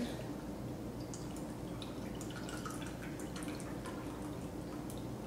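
Liquid egg whites pouring from a carton into a Vitamix blender jar: a soft, steady trickle with faint drips.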